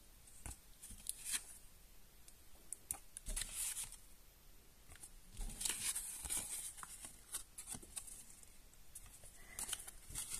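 Small paper cards being handled: short bursts of rustling and sliding paper with light taps and clicks, coming and going.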